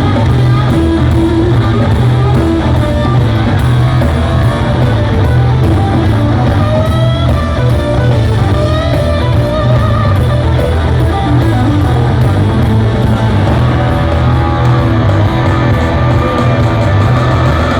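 Rock band playing live and loud, guitar to the fore over a heavy bass.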